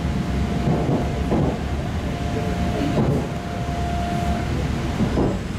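EP2D electric train heard from inside the car while running: a steady rumble of wheels on rail with several short knocks about a second apart, and a thin steady whine that stops about four and a half seconds in.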